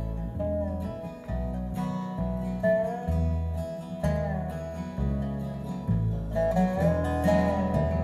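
Acoustic string band playing an instrumental opening: strummed acoustic guitar over plucked upright bass, with a lead line that slides between notes.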